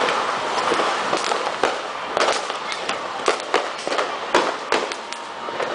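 Ground fountain firework spraying sparks with a steady hiss, punctuated by irregular sharp firecracker bangs, several in quick succession.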